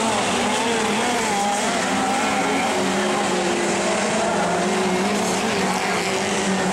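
A pack of winged mini sprint cars racing on a dirt speedway oval, several engines running hard at once with overlapping pitches that rise and fall as they work through the turns.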